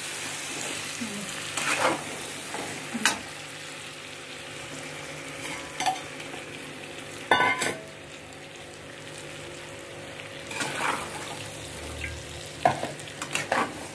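Brinjal pieces frying in oil in a nonstick wok with a steady sizzle. A steel spatula scrapes and knocks against the pan as they are turned, several separate strokes, the loudest about seven seconds in.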